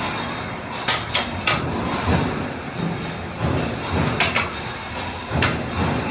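Irregular sharp knocks and clanks, several in quick succession, over low thuds and a steady background noise.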